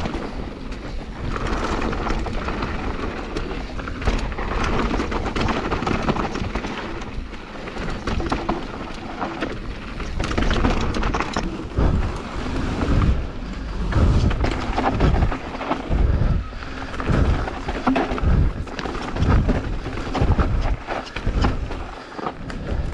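Wind buffeting an action camera's microphone as a mountain bike rides down a dirt bikepark trail, with tyre noise and low thumps over bumps. The thumps come in pulses and more often in the second half.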